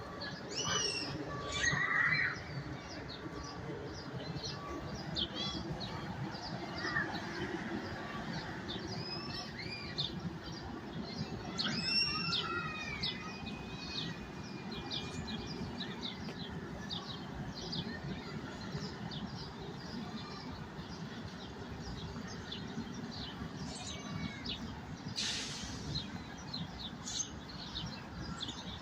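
Birds chirping and calling over a steady low background noise, with a few louder calls about a second in and again around twelve seconds in. There is a brief hiss near the end.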